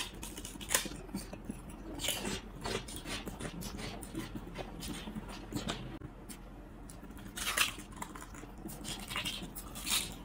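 Crisp puffed shrimp crackers bitten and chewed close to the microphone: crunchy bites and chewing crackles, with louder bites at the start, about two seconds in, around seven and a half seconds and near the end.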